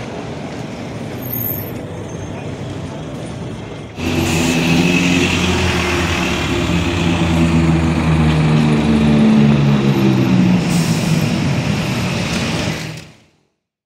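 Street traffic: a Dodge Challenger driving off for the first few seconds, then, louder and suddenly from about four seconds in, a red London bus passing close with its diesel engine running, with a burst of hiss about eleven seconds in. The sound cuts off just before the end.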